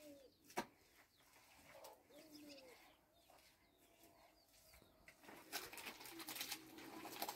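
Faint bird calls: a few short, low notes that bend up and down in pitch, and some thin high chirps. A sharp click comes just after the start, and a louder rustling, scraping noise sets in about five seconds in.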